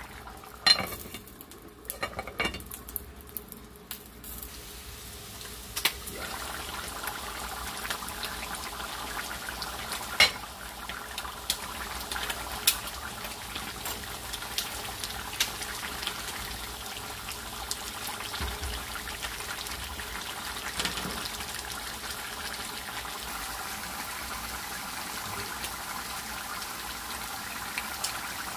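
A pot of beef tripe in spiced broth boiling on a stove: a steady bubbling hiss with many small pops. A few sharp metal clinks against the pot come in the first few seconds and again around ten seconds in.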